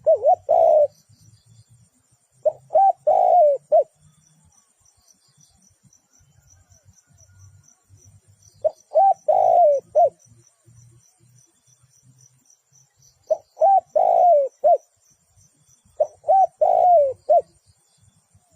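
Spotted dove cooing: five phrases spaced a few seconds apart, each a couple of short coos around a longer middle coo.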